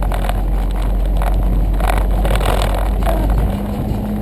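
Interior road and engine noise of a 2007 Jeep Wrangler JK under way: a steady low rumble. About three and a half seconds in the rumble eases and a steady engine hum comes in.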